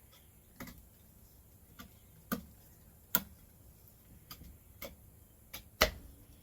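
About eight sharp, irregularly spaced taps and knocks of wood on wood as a glued top piece is set in place and adjusted, the loudest one near the end.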